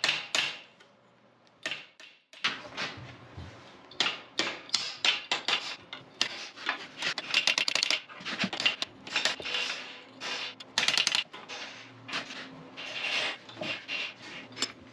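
Blacksmith's hand hammer striking red-hot steel, forging down the points of a leaf-shaped handle: quick runs of sharp blows with short pauses between them.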